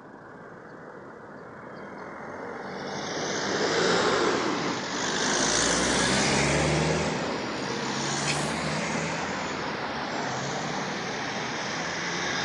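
Road traffic driving past: tyre and engine noise that swells from about two seconds in and stays loud, with a low engine drone through the second half.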